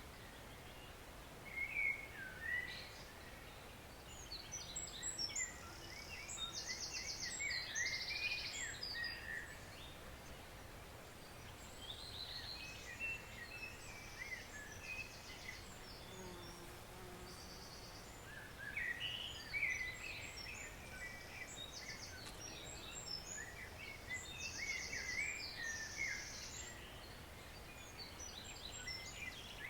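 A songbird singing three long phrases of quick chirps and rapid high trills over the steady rush of a forest stream.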